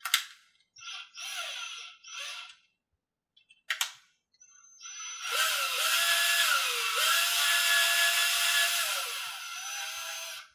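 Cordless drill drilling out a mounting hole in the aluminium crankcase lug of a Thunder Tiger Pro .46 model glow engine, enlarging it to take a 6-32 screw. A click, two short trigger pulls about a second in, another click, then a long run from about five seconds in whose motor pitch dips and recovers as the bit bites.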